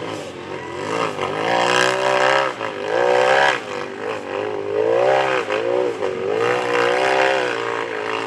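Rock bouncer race buggy's engine revving hard, its pitch rising and falling again and again as the throttle is worked on and off.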